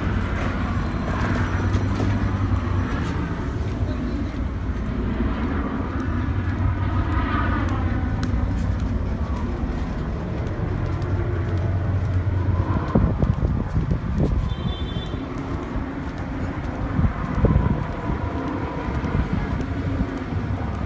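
Steady low rumble of a large vehicle engine running, over street noise, with scattered knocks and clatter in the second half and faint voices.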